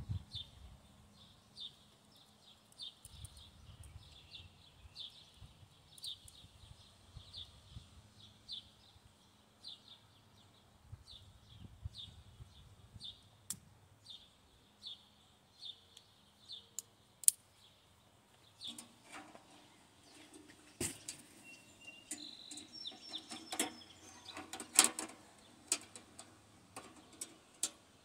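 A bird chirps over and over, about one to two short high chirps a second, for roughly the first two-thirds. Then the metal parts of a folding camping stove clink and clatter as they are fitted together, with several sharp clicks.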